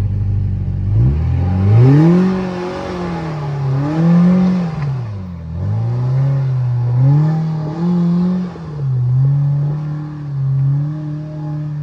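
Side-by-side UTV engine revving up and down over and over, its pitch rising and falling every second or two as the throttle is worked on a rock climb, then holding a steady, higher speed near the end.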